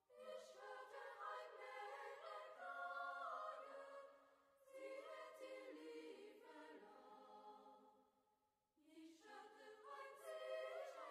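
Quiet choir singing in long held notes, in three phrases with short pauses between them.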